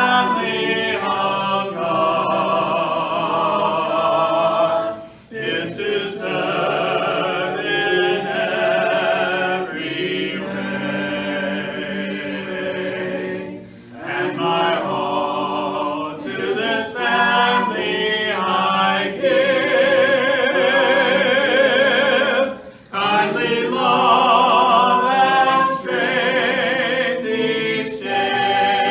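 Hymn sung a cappella by a group of voices in harmony, with vibrato, pausing briefly between phrases about every nine seconds.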